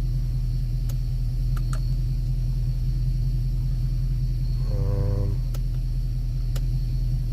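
Audi S5's 4.2-litre V8 idling, heard from inside the cabin as a steady low drone. A few faint clicks and a brief voice sound about five seconds in.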